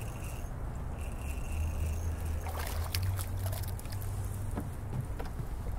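Water splashing in short irregular bursts as a hooked trout thrashes at the surface below a spring-loaded hook setter, over a low steady rumble.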